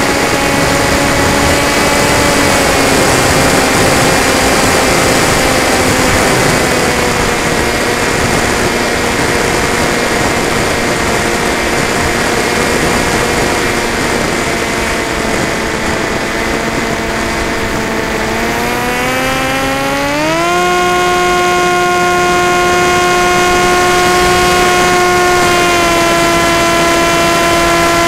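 Electric motor and propeller of an FPV model aircraft whining steadily in flight, heard from its onboard camera with air rushing over it. The pitch sags slightly a couple of times, then climbs sharply about nineteen seconds in as the throttle is opened, and holds high to the end.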